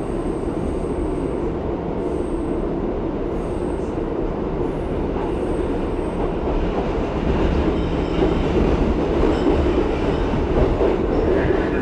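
R62A subway car running on the tracks, heard from inside the car: a steady rumble of wheels and car body that grows louder about seven seconds in, with faint short high-pitched squeals in the first half.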